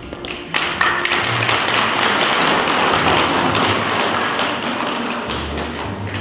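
A room of people clapping: applause breaks out about half a second in as a dense patter of claps, with music playing quietly underneath.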